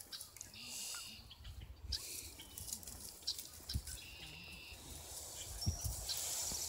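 Beagle puppies whimpering faintly, a few short high whines, with light rustling and small clicks.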